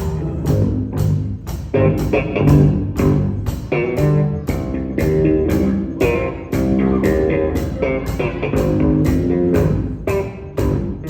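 Live saxophone ensemble of alto, tenor and baritone saxophones with bass guitar and piano playing a jazz tune over a steady ticking beat.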